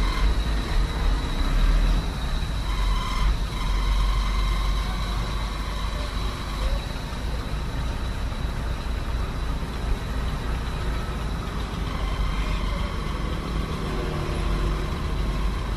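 Hino truck's diesel engine running at low revs as the truck reverses slowly, a steady low rumble with little change.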